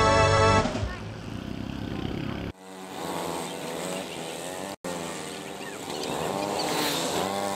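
Intro music ends within the first second. Then several go-kart engines idle together on the starting grid, their pitches overlapping and wavering up and down. The sound cuts off suddenly twice, at edits.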